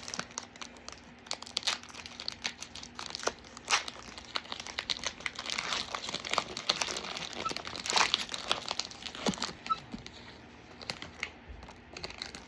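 Foil booster pack wrapper crinkling and tearing as it is opened, with dense, irregular crackles.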